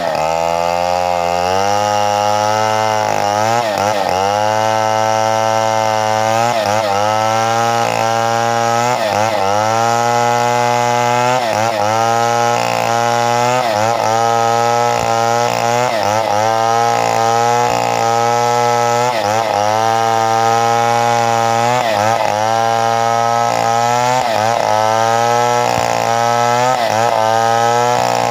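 Two-stroke chainsaw running at high revs while cutting wood. The engine note dips and recovers every second or two as the chain bites under load.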